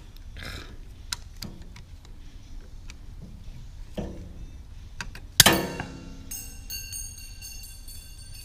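Light metal clicks of snap ring pliers working at a snap ring in a manual transmission case. About five and a half seconds in comes a sharp metal clank that leaves a ringing tone for a couple of seconds.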